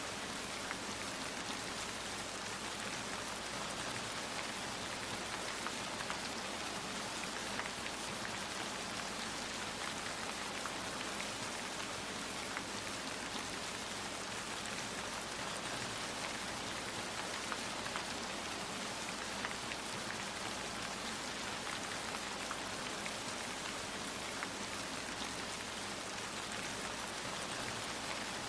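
Steady rain falling: an even hiss studded with many small drop ticks, with no thunder.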